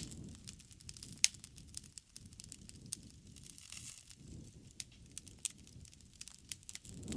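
Wood fire crackling: frequent sharp pops and snaps, one louder pop about a second in, over a low, swelling rumble of the burning fire.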